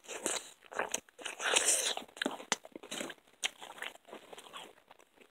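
Close-up chewing and crunching of a mouthful of crisp-crust pizza, with irregular crisp clicks and a denser crunching stretch about one and a half seconds in.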